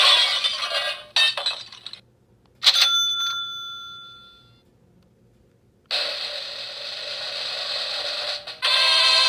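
A sound-effects machine playing a string of short effects. A noisy jingle stutters and cuts out, then a single bell-like ding rings and fades away. After a pause comes a steady hiss, and near the end a loud tonal jingle starts.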